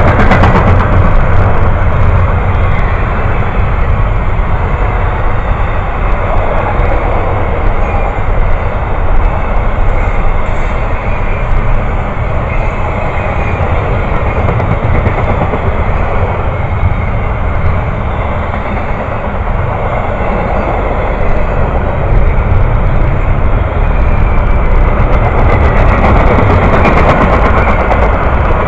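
Train passing close by: a loud, steady rumble of wheels on rail.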